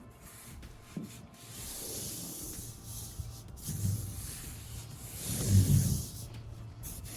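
Hands rubbing and pressing an adhesive-backed foam grip pad down onto a car's sheet-metal roof, a hissing scrape as the backing peels and the pad is smoothed, with dull thuds about four and five and a half seconds in, the second the loudest.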